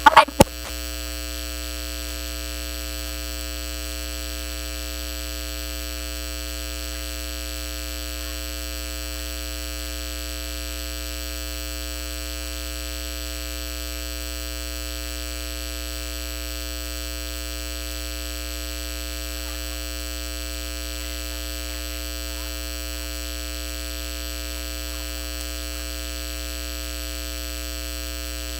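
Steady electrical mains hum with many overtones, unchanging, in place of the speaker's voice: an audio recording fault in which the microphone feed has dropped out.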